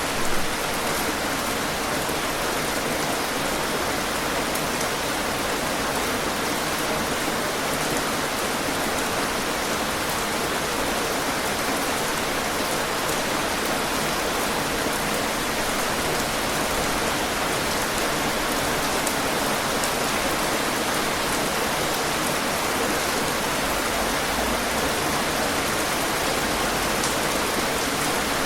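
Heavy rain falling steadily: a dense, even hiss with faint individual drop ticks through it, briefly louder right at the start.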